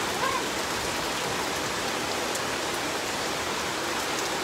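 Heavy, steady downpour of rain falling on trees and standing floodwater.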